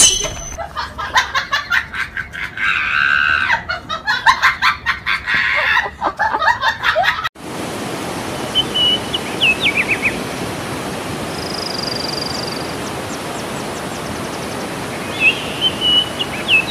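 Rapid, irregular chirping for about seven seconds. Then, after a sudden cut, a steady rush of stream water in a gorge, with short whistled bird calls over it several times.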